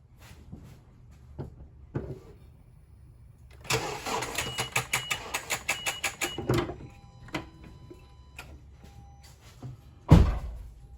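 A 2018 Honda CR-V starting attempt on a weak battery: the starter labours in a rapid run of strokes, about five a second for roughly three seconds, while a dashboard chime beeps. The battery voltage sags below 9 volts under the load, a sign of a failing battery. A single loud thump follows near the end.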